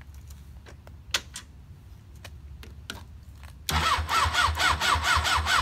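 Motorcycle electric starter cranking the engine over in a rapid, even churn of about five strokes a second. It begins about four seconds in, after a few light clicks, and the engine does not catch. This is a first start attempt on a crash-damaged bike that has almost no oil.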